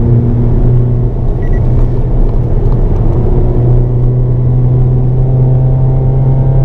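Hyundai Avante N (Elantra N) engine heard from inside the cabin, pulling at a nearly steady pitch on track, over a rumble of tyre and road noise.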